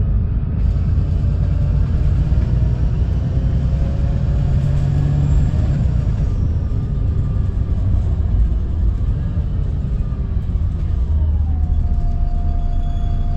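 VDL SB200 Wright Pulsar 2 single-deck bus under way, heard from inside: the diesel engine and drivetrain run with a steady low rumble. The engine note rises in pitch a few seconds in, drops again about eleven seconds in, then settles into a steady whine.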